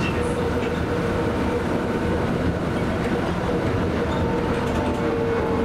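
Interior running noise of a Hiroshima Astram Line rubber-tyred guideway transit car on its elevated track: a steady rumble with a faint humming tone in it, joined by a higher tone about four seconds in.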